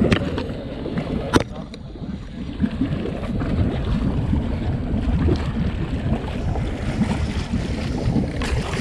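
Wind buffeting the microphone over water sloshing against a fishing boat's hull, a steady low rumble with one sharp click or knock about a second and a half in.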